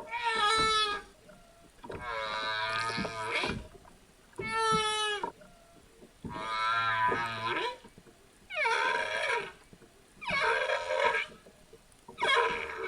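Humpback whale calls: a series of pitched moans and whoops, each about a second long, coming every second or two, several of them sliding down in pitch.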